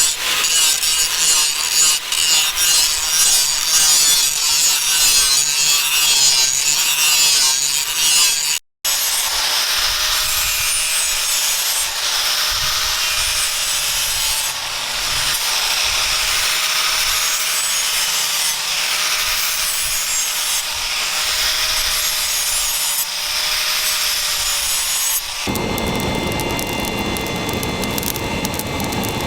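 Steel being worked by hand with an abrasive or cutting tool, a harsh rasping scrape in uneven strokes. After a short break it turns into a steadier scraping with a faint wavering whine. About 25 seconds in, this gives way to a broad, low rushing noise.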